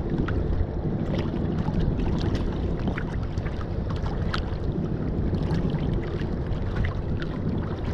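Small boat under way on choppy sea: a steady low rumble with water slapping and splashing against the hull in many short strikes, and wind on the microphone.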